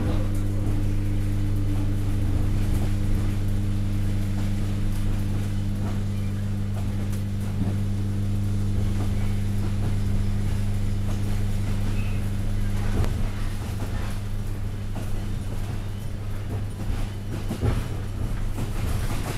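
ER25 electric multiple unit heard from inside a passenger car: a steady electric hum with several pitched tones over running noise. One of the tones drops out about halfway through, and a few knocks come near the end.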